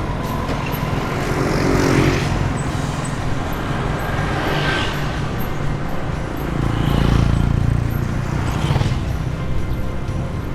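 Road traffic: motor vehicles passing one after another in about three swells, around two seconds in, near five seconds and from about seven to nine seconds, over a steady low road rumble.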